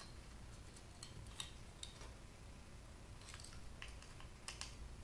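Faint, irregular light metallic clicks as a small screwdriver turns a Torx screw out of a circuit board.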